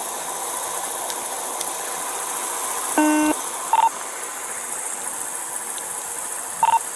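Steady hiss of police radio and bodycam background, broken by a short buzzing tone about three seconds in and two brief high beeps, one just after it and one near the end, the chirps of a police radio around a transmission.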